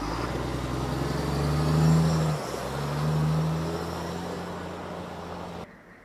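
Military six-wheel-drive cargo truck's diesel engine pulling away, revving up, dropping briefly at a gear change about two and a half seconds in, then revving again and easing off. The sound cuts off suddenly near the end.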